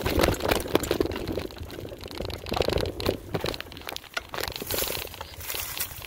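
Mountain bike rolling over a rough trail: an irregular run of crunching and knocking from the tyres on the ground and the bike rattling.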